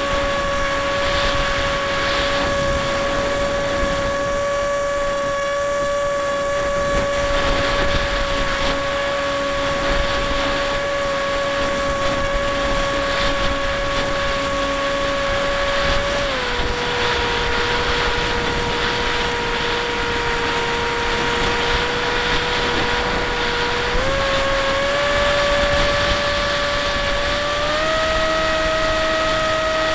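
Bixler 1 RC plane's electric pusher motor and propeller whining steadily in flight, with wind rushing over the onboard camera. About halfway through the pitch drops as the throttle is eased back, then rises again in two steps near the end as the throttle is opened up.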